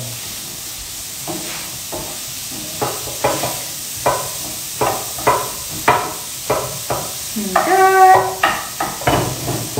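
Kitchen utensil knocks during food preparation, irregular, about one a second, some with a short ring, over a faint steady hiss from the pan. A brief held tone sounds near the end.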